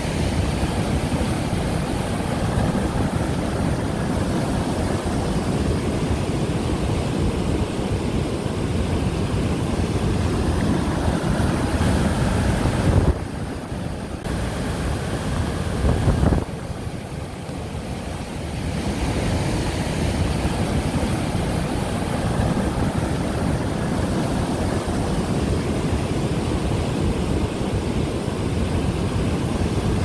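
A river in spate rushing over rock falls, a steady low rushing noise that drops away abruptly for a moment twice around the middle.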